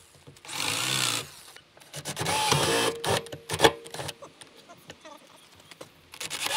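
Power drill run in two short bursts of about a second each, working into wooden deck boards on a steel trailer frame, followed by a few sharp clicks.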